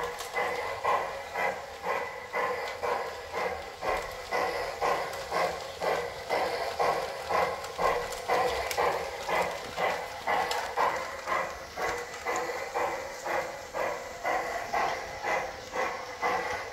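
G-scale toy steam locomotive running around its track, with an even chuffing beat of about two a second.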